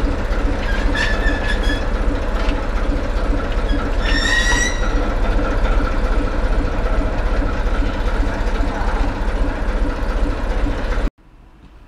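ČD class 749 'Bardotka' diesel locomotive with a muffled exhaust, its engine running steadily with a slow rhythmic pulse as it pulls coaches slowly past. Brief high wheel squeals come about a second in and again around four seconds. Near the end the sound drops abruptly to a much quieter background.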